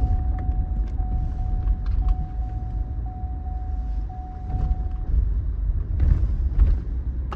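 Vehicle cabin rumble from engine and road noise while driving. A thin, steady tone with small regular breaks sounds for about the first five seconds and then stops.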